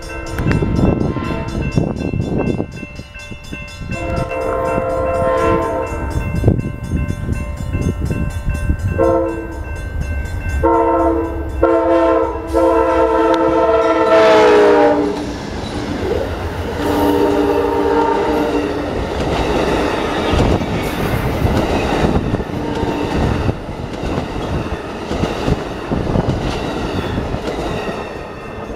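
Amtrak Coast Starlight passenger train passing, its locomotive horn sounding several blasts: a long one, two short ones, then a long blast that drops in pitch as the locomotive goes by, and a lower blast after it. The rumble and wheel clatter of the train run underneath throughout.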